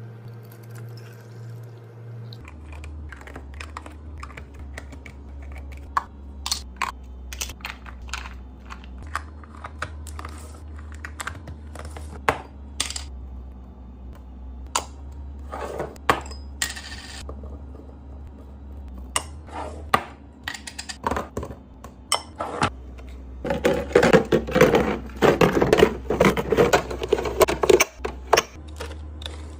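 Drink containers and snack packages clicking, clinking and knocking as they are handled and set into a mini fridge, in quick irregular taps over a low steady hum. Near the end comes a few seconds of dense rustling and crinkling, like packaging being handled.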